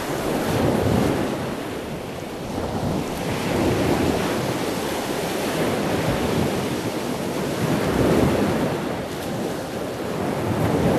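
Ocean surf washing onto a beach, swelling and easing every few seconds, with wind buffeting the microphone.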